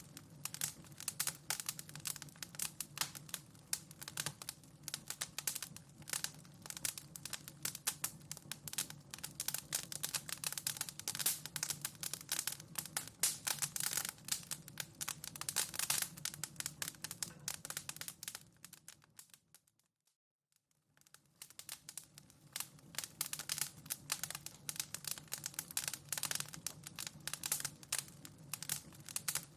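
Wood fire in a fireplace crackling, with dense small pops and snaps. About two-thirds of the way in, it fades out to silence for a second or two and then fades back in, at the seam where the recording loops.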